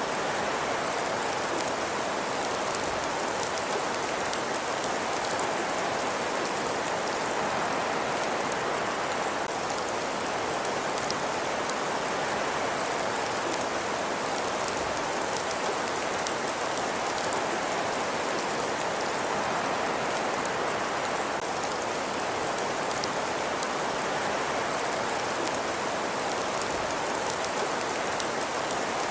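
Steady ambience loop: an even, unbroken hiss with faint, fine crackles over it.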